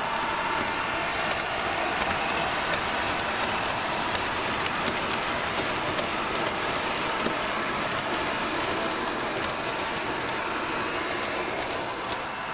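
H0 scale model covered hopper wagons rolling past on the track: a steady hiss of metal wheels on the rails, with irregular sharp clicks at the rail joints. It fades slightly near the end as the last wagon goes by.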